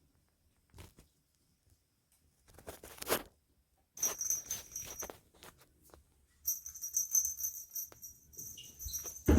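Dog playing with a noisy toy: scattered scuffles and knocks, then a high, shrill, fluttering ringing from about four seconds in that breaks off briefly and starts again.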